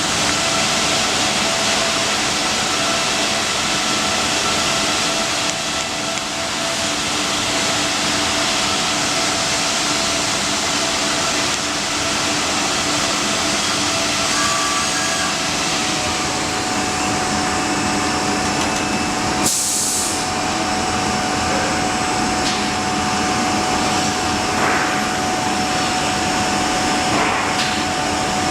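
Workshop machinery running steadily: an even mechanical noise with a few constant hums. A short, sharp hiss like a blast of air comes about two-thirds of the way through.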